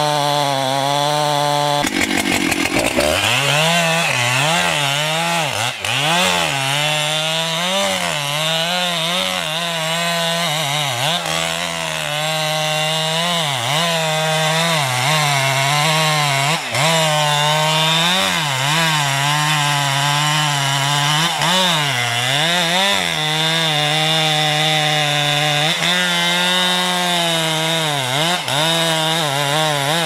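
Large two-stroke chainsaw running at full throttle in a cut through the base of a big tree trunk. From about two seconds in, its engine note keeps dipping under load and picking back up as the chain works through the wood.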